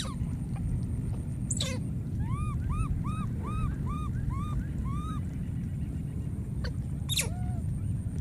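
Animal calls: a run of about eight short rising-and-falling calls, about two a second, over a steady low rumble. Three quick downward-sweeping sounds come at the start, near two seconds in and near the end.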